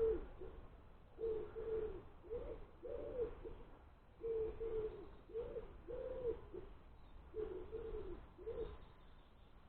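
A pigeon cooing: three phrases of low, repeated coo notes, the last ending shortly before the end. Wind rumbles on the microphone underneath.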